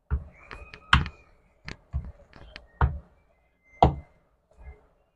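Stainless-steel rolling pin rolling out naan dough on a silicone mat, making a series of dull knocks and taps, roughly one a second as each stroke lands or ends.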